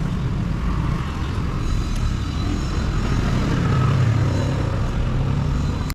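Steady low rumble of a motor vehicle engine running, swelling slightly a few seconds in.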